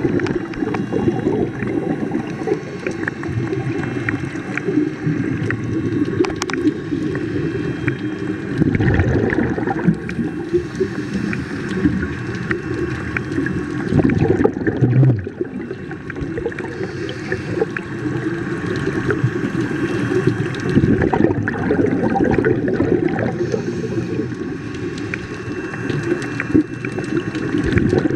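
Underwater sound of a scuba diver breathing through a regulator: a continuous bubbling gurgle, with louder surges of exhaled bubbles every several seconds.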